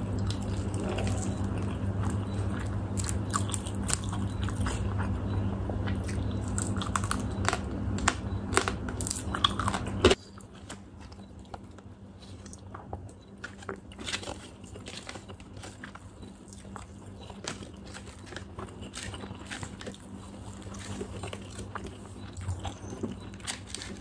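Close-miked eating of fried quail: crisp bites and crunching with chewing and mouth clicks. A steady low hum behind it cuts off suddenly about ten seconds in, after which the chewing continues more quietly.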